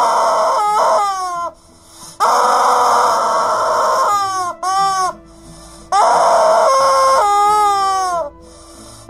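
Rubber screaming chicken toy squeezed three times. Each squeeze gives a long, loud, buzzing squawk lasting one to two seconds, and each release gives a pitched squeal that falls as the toy draws air back in.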